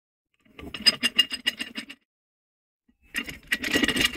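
Vintage Stillson pipe wrench being worked by hand, its toothed hook jaw sliding and rattling against the cast frame: two spells of quick metal clicking and rattling, the second starting about three seconds in as the jaw is drawn out.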